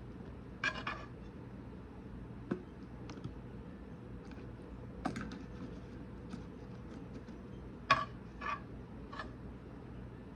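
Scattered light clicks and short crackling rustles of taco shells and kitchen utensils being handled while filling tacos. The two loudest crackly bursts come about a second in and near the end. A steady low electrical hum runs underneath.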